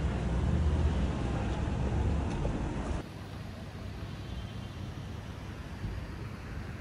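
City street ambience with a low rumble of road traffic. About three seconds in it drops abruptly to a quieter, even background hum.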